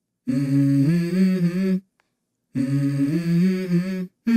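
Background music: a wordless vocal melody in two phrases of about a second and a half each, with complete silence between them about two seconds in and again just before the end.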